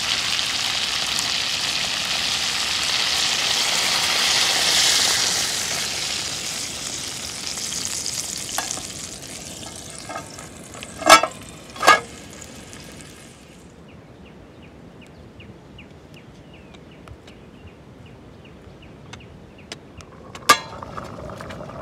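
Food frying in hot oil in a pan, a steady sizzle that dies away after about ten seconds. Two sharp clanks come near the middle and another near the end.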